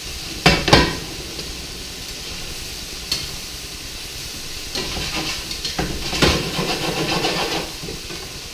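Vegetables sizzling steadily in hot olive oil in a stir-fry pan. Two sharp knocks come about half a second in and another around three seconds; a stretch of irregular pan and utensil clatter follows in the second half.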